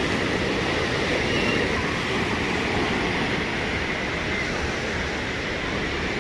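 Steady rushing noise of ocean surf, with wind buffeting the microphone.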